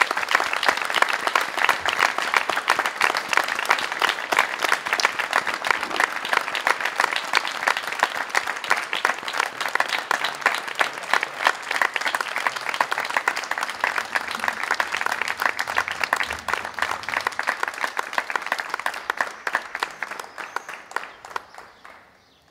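A small crowd applauding by hand, dense steady clapping that thins and fades out near the end.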